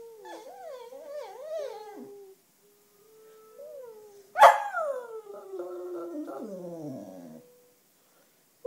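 Black cocker spaniel howling: first a run of short wavering howls that bend up and down in pitch, then about four and a half seconds in a loud howl that starts high and slides slowly down into a low, drawn-out fall.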